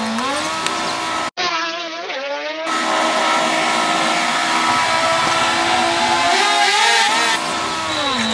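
A vehicle engine revving, its pitch rising and falling, with a sudden brief cut just over a second in.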